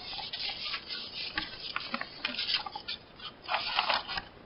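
Scissors snipping through a sheet of printer paper in a series of irregular cuts, with the paper rustling as it is handled and turned.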